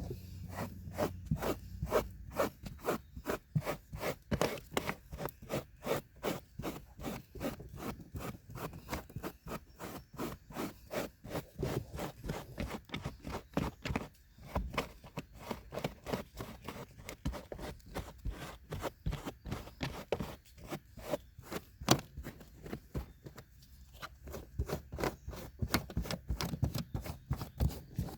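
A brush scrubbed back and forth over car carpet in quick scraping strokes, about three a second.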